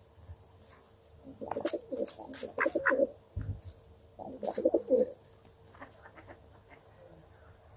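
Feral pigeons cooing close by, in two short bursts of pulsing low calls, about a second and a half in and again about four seconds in, with a few sharp clicks among them.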